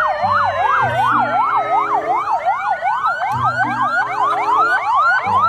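Several ambulance sirens sounding together: a fast sweep up and down about three times a second over a slower, gradually falling wail.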